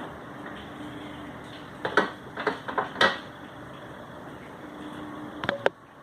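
A cluster of sharp knocks and clatters about two to three seconds in and two more near the end, over a steady hiss; the sound then cuts off abruptly.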